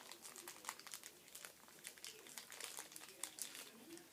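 Crinkling of a Shopkins blind-bag's plastic packaging as it is handled and opened, many small quick crackles.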